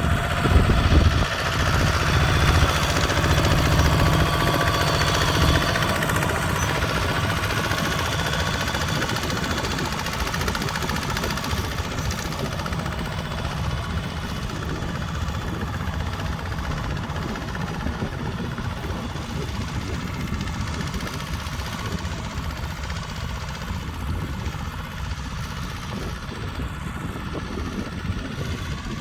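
Tractor engine running, loudest in the first few seconds and then slowly fading.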